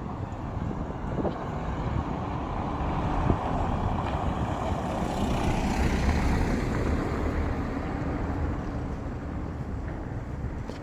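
A motor vehicle passing by on the street: its engine and tyre noise swell to a peak about halfway through, then fade away.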